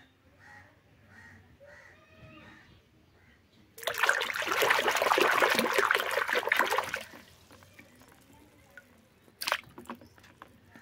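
A hand swishing and splashing water in a plastic basin while washing plastic toy animals: about three seconds of loud splashing starting a few seconds in, then one short splash near the end.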